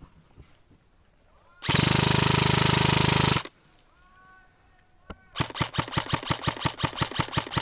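Airsoft rifle firing on full auto: one loud continuous burst of about a second and a half, then after a pause a single shot followed by a long string of rapid shots at about seven a second.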